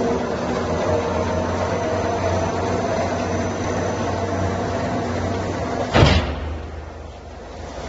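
Embossing roll mill running, pressing a raised checker pattern into 3 mm steel plate: a steady mechanical drone with a low hum. About six seconds in there is a single loud bang, after which the noise drops briefly.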